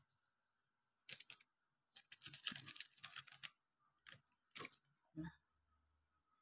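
Fruit being handled in a wicker basket: a few short, separate bursts of rustling and light knocking amid near silence.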